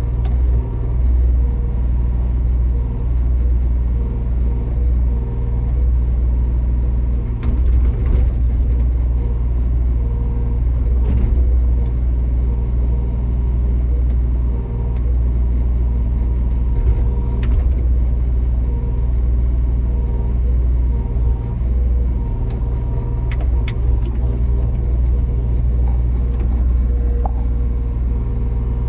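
Backhoe loader's diesel engine running steadily, a deep low rumble with a few short knocks over it.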